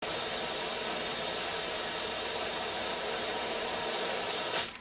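Ninja Foodi Deluxe pressure cooker hissing steadily as steam escapes past its float valve while it comes up to pressure. The hiss cuts off sharply near the end as the float valve pops up and seals: the cooker has reached pressure.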